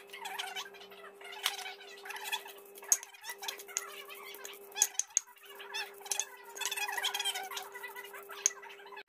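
Stone pestle grinding spice paste and basil leaves in a stone mortar (ulekan and cobek): irregular scraping with squeaks and several sharp knocks of stone on stone.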